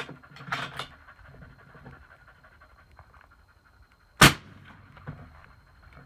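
A single suppressed rifle shot about four seconds in: a 6.5 Creedmoor fired through a Thunder Beast Ultra 7-inch 30-cal suppressor, heard from the shooter's position and reading about 134 dB on the meter. A few faint handling clicks come before it.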